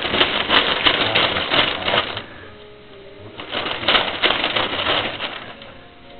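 Crinkly wrapping paper rustling and crackling as a baby grabs and shakes it, in two bursts with a short pause a couple of seconds in.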